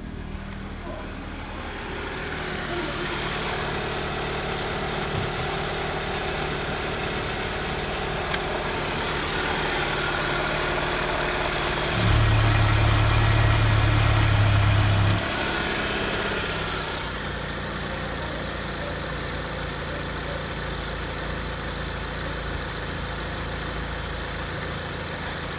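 Renault K4M 1.6 16-valve four-cylinder petrol engine idling steadily. About halfway through, a much louder, deeper hum lasts about three seconds, then drops back suddenly.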